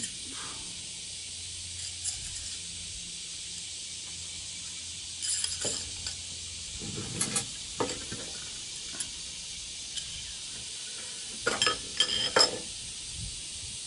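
Metal tarp pole sections clinking and tapping as a shock cord is threaded through them, a few scattered clinks with a louder cluster near the end, over a steady background hiss.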